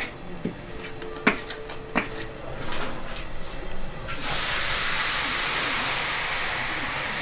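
A few sharp knocks and scrapes as a wok of hot boiled brown sugar syrup is tipped onto a metal cooling table. About four seconds in, a steady hiss starts suddenly and slowly fades while the hot syrup is stirred and spread on the sheet to cool.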